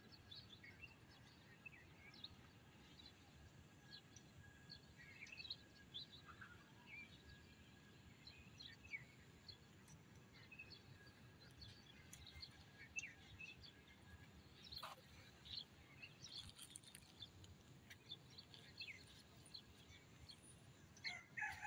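Faint outdoor ambience with scattered short bird chirps and calls, coming and going throughout.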